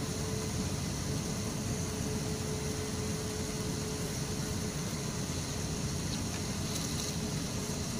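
Airliner cabin noise from a window seat as the plane taxis: the jet engines run steadily with a low rumble, a hiss and a steady mid-pitched whine.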